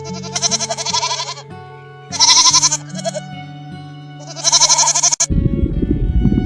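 Three loud, quavering animal calls, much like bleating, over background music with held notes. About five seconds in, this cuts off suddenly and gives way to a loud, low rumbling noise.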